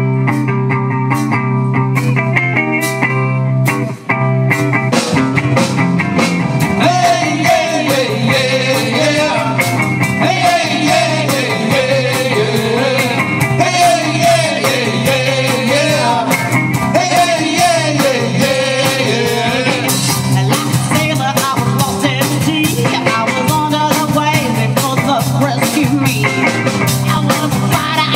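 Live blues-rock band playing: electric guitars, bass and drums, with a bending melody line over the top from about seven to twenty seconds in.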